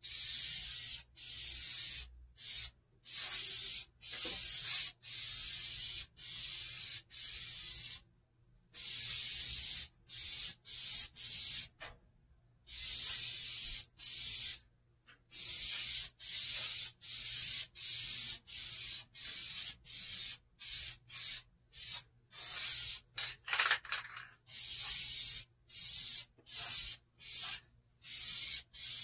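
Aerosol can of vinyl and fabric spray paint hissing in many short bursts, roughly one or two a second with a few longer pauses, as paint is worked into the seat's pleats. A brief clatter comes about three-quarters of the way through.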